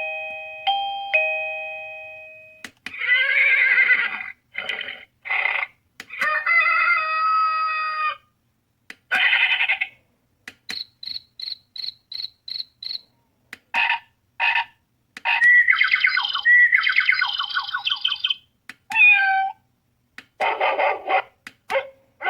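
AVANTEK CB-11 wireless doorbell chime running through its built-in melodies. First come ding-dong tones fading out, then a string of short varied ringtone clips with brief silences between them, including bird-like chirps and a run of seven quick high beeps about halfway through.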